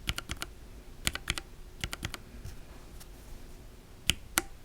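Lubed linear mechanical keyboard switches being pressed and released close to the microphone: small clusters of sharp clicks, the bottom-out and top-out of each keystroke, in bursts about a second apart.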